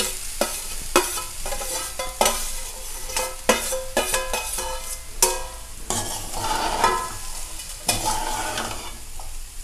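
Metal spatula stirring cooked rice through grated coconut in a metal kadai, with repeated scrapes and clinks against the pan that ring briefly.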